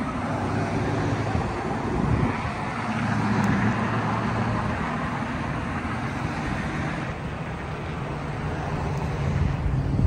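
Road traffic: cars driving past on the street, a steady rush of tyres and engines with a low engine hum that eases off about halfway through.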